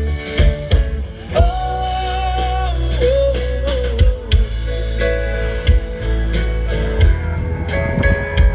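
Live band playing a rock song with drums, bass and guitar, with a singer holding a long wavering 'oh' about a second in.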